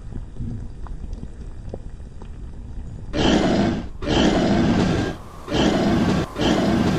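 A low rumble with faint ticks, then, about three seconds in, a monster creature's roar sound effect: four loud roars in quick succession, each under a second long.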